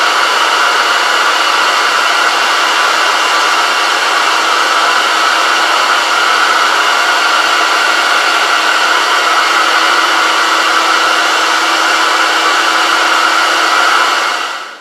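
Grizzly surface grinder's spindle motor running with the grinding wheel spinning at speed while the wheel is trued against a diamond dresser: a loud, steady whirring hiss with a faint low hum under it. It dies away near the end.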